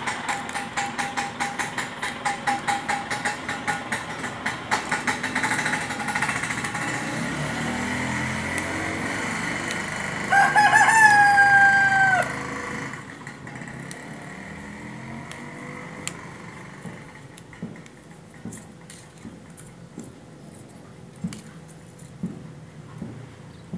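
A rooster crows once, about ten seconds in: a drawn-out call that ends in a falling note. Before it, a fast run of mechanical clicking, about three or four clicks a second, fades out over the first several seconds.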